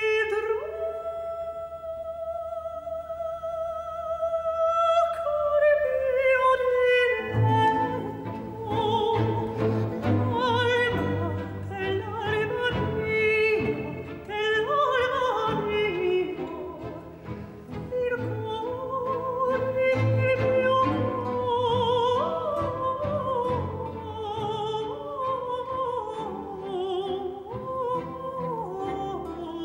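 Countertenor singing a baroque aria with a baroque string orchestra. It opens on one long held note over a thin accompaniment, then the full strings with a bass line come in about seven seconds in, under a moving vocal line.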